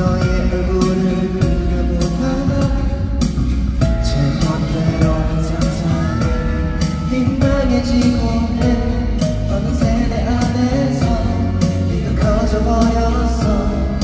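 Male pop vocalist singing into a handheld microphone over a backing track with a steady beat, amplified through the arena's sound system.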